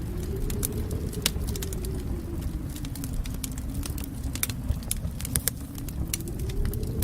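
Wood fire crackling in a fireplace: irregular sharp pops and snaps over a steady low rumble, with a faint low tone that slowly rises and falls in pitch.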